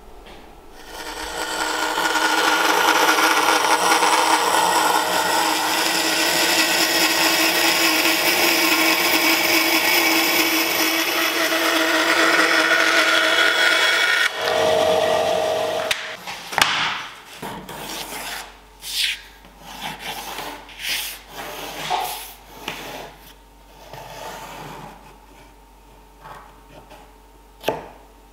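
A benchtop scroll saw running steadily as it cuts a curve in a thin plywood template, stopping about halfway through. Then scattered knocks and rustles of the thin wooden template being handled and laid on an oak board.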